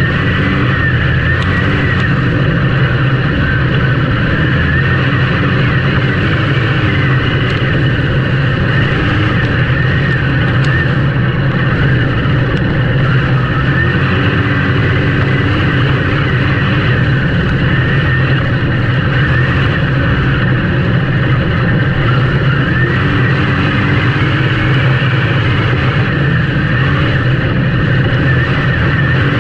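Race engines running and revving steadily, their pitch wavering up and down throughout.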